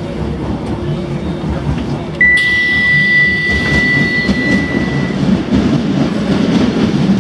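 Docklands Light Railway train standing at a station with its doors opening: about two seconds in, a steady high beep sounds for about three seconds along with a hiss, over the low rumble of the train.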